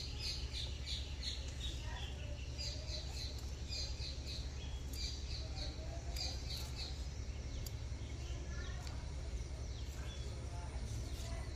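Small birds chirping in short runs of quick, high repeated notes, over a steady low hum.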